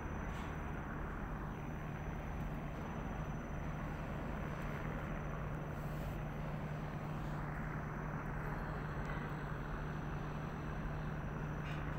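Steady low hum of construction-site machinery under an even wash of noise, with no change through the stretch.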